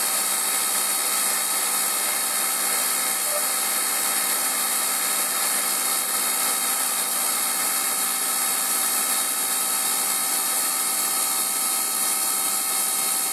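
Emco Compact 5 CNC lathe running steadily as it cuts an internal radius in 6082-T6 aluminium bar: a steady machine drone with several constant pitches over a hiss, unchanging throughout.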